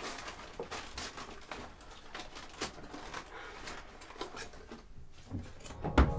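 Someone rummaging at a desk drawer: soft rustles and small clicks and knocks of things being handled, with a louder thump near the end.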